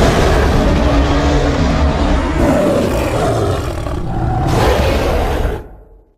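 A long, rough monster roar sound effect for a giant gorilla creature, with a heavy low rumble, held for several seconds and then fading out near the end.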